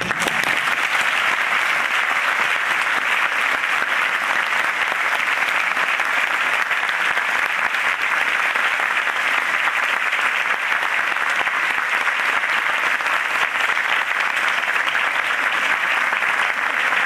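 Audience applauding at the end of a talk. The clapping breaks out all at once and stays steady.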